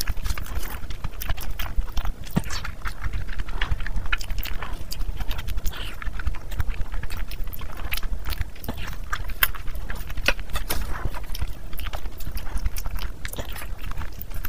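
Close-miked wet chewing of rice and mutton curry eaten by hand: rapid, irregular lip-smacking and squelching clicks, several a second, over a steady low rumble.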